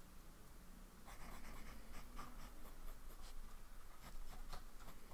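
Fountain pen with a medium nib (TWSBI 580 Iris) scratching across paper in a quick run of short strokes, writing loops and lines; the strokes start about a second in.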